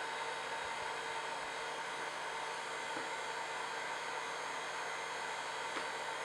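Hot-air blower running steadily: a continuous rush of air over the whine of its small electric fan motor.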